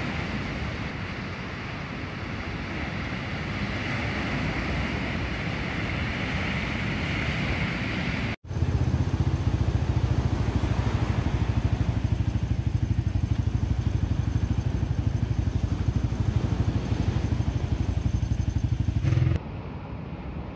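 Ocean surf washing with wind on the microphone; after an abrupt cut, a louder steady low rumble takes over, then cuts off again near the end.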